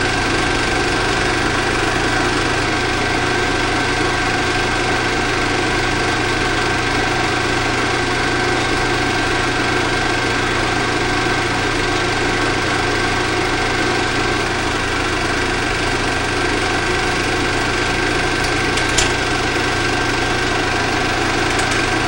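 16mm film projector running: a steady mechanical whir and hum, with one faint click near the end.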